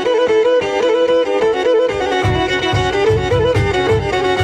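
Background music: a fast, fiddle-like bowed-string melody, joined about two seconds in by a steady low beat.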